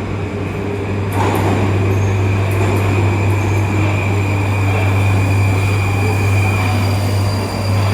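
Metro train running at the station, with a steady low hum and a faint high steady whine. There is a sharp clack about a second in.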